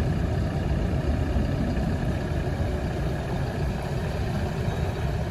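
Engine idling steadily, a low even rumble that stands in for a forklift.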